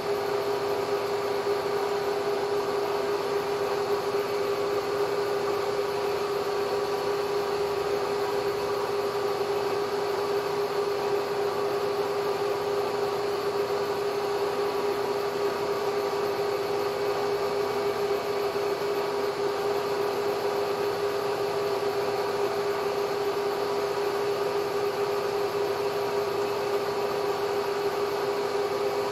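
Bridgeport J-head milling machine running steadily with its spindle turning a boring head through a light cut in a hole. It gives a constant hum with a steady whine on top.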